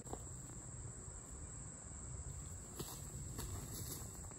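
Insects trilling in one steady, unbroken high-pitched note, over a low rumble of outdoor background noise, with a couple of faint clicks near the end.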